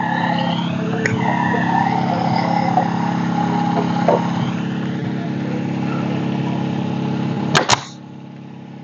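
Air compressor motor running steadily, then cutting off near the end, with two sharp clacks just before it stops.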